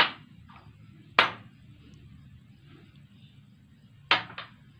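A spoon clinking against the rim of a bowl as ground spices are added to minced meat: a sharp clink at the start, another about a second in, and two quick ones near the end.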